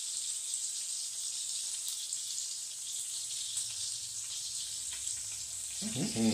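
Beef smash burger patties frying in hot grease: a steady sizzling hiss with faint scattered crackles.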